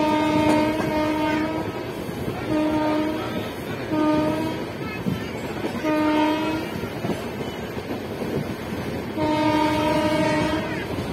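Train air horn blowing: a long blast that ends about a second and a half in, three short blasts about a second and a half apart, then another long blast near the end. Underneath is the steady rumble and wheel clatter of an express train running at speed.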